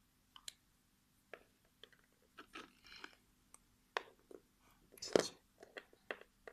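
Small plastic Littlest Pet Shop toy figures and play-set pieces being handled and set down: scattered light clicks and knocks, with a louder knock about five seconds in.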